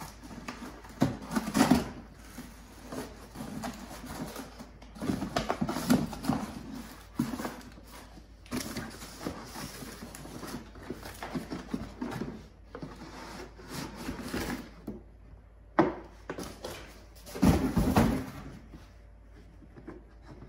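Cardboard box being cut open with a knife along its taped seam, with the tape and cardboard tearing, then the flaps rustling and a plastic hydroponic container scraping as it is pulled out. A sharp knock comes about three-quarters of the way through, and the loudest handling noise comes shortly after.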